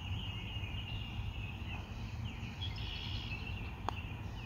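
Small birds chirping and twittering without a break over a low steady rumble, with one sharp click near the end: a putter striking a golf ball.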